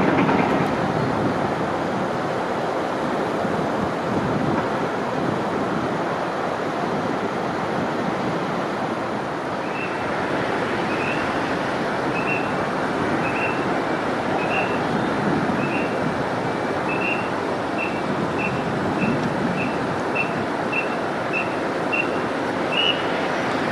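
Steady loud rumbling noise throughout. From about ten seconds in, a run of short high-pitched tones repeats, coming faster and faster toward the end.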